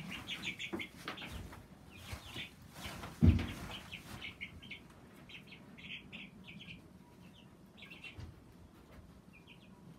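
Baby chicks peeping in many short, high cheeps, thinning out and fainter in the second half. One sharp thump about three seconds in is the loudest sound.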